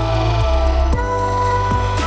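Background music with a heavy bass line that changes notes about every half second under sustained synth tones.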